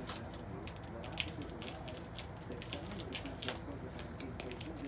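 Packing tape and paper being handled and crinkled, making an irregular run of small crackles and clicks.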